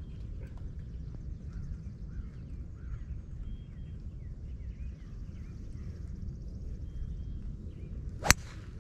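Birds chirping over a steady low rumble. Near the end, a single sharp crack of a golf club striking the ball.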